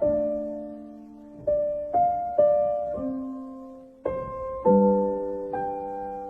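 Slow, gentle piano music: single notes and chords struck a second or so apart, each ringing and fading away.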